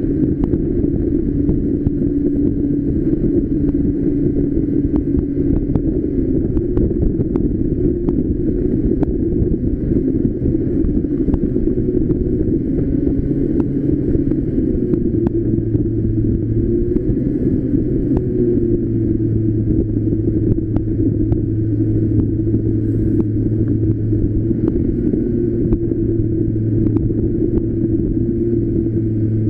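Street go-kart engine running at a steady cruising speed, with road and wind noise. The engine note shifts slightly about halfway through.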